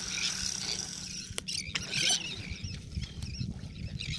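A flock of seabirds calling, with several short, high, wavering cries, the clearest near the start and about two seconds in. A steady low rumble runs underneath.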